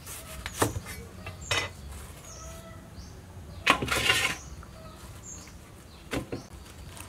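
A knife cutting into a napa cabbage on a wooden chopping board, two sharp cuts in the first two seconds, then a loud rustling clatter as cabbage goes into a stainless steel bowl about four seconds in, and one more knock near the end. Birds chirp faintly in the background.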